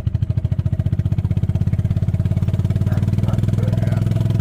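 Golf cart engine running under throttle as the cart tries to climb a slick hill, its pulsing note quickening and evening out over the first couple of seconds.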